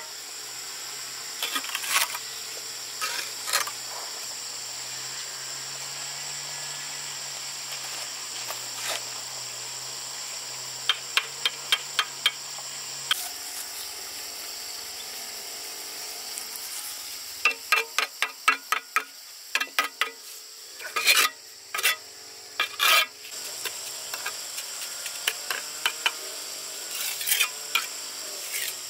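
Hand tools tapping and scraping during building work, in runs of quick sharp taps, heaviest in the second half. Under them is a steady high drone of insects.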